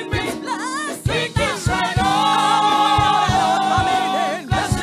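Gospel choir singing with a live band of drums, electric bass and keyboard. The voices hold a long note in the middle while a kick drum keeps a steady beat underneath.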